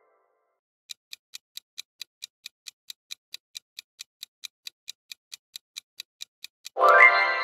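Clock-style countdown ticking sound effect: a rapid, even tick, a little over four ticks a second, starting about a second in. Near the end the ticking stops and a loud, bright chime sounds.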